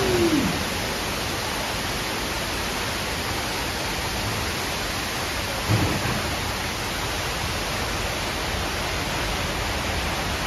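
Steady rushing noise of a Studio Tour tram rolling through a large enclosed soundstage. A short rising-and-falling tone sounds at the very start, and a brief bump comes about six seconds in.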